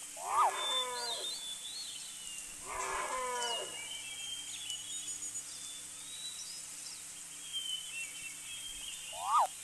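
An animal calling: two drawn-out calls falling in pitch, about two seconds apart, and a short third call near the end, with small birds chirping throughout.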